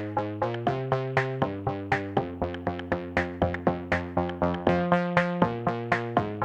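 Background electronic music: synthesizer notes in a quick, even rhythm over changing chords, with a drum-machine beat.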